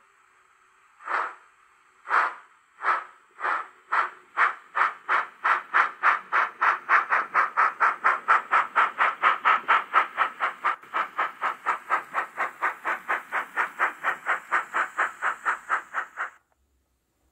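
Steam chuffs from a sound-equipped H0e narrow-gauge model steam locomotive pulling away with its coaches: single chuffs about a second apart at first, quickening steadily to about four a second, then cutting off suddenly near the end.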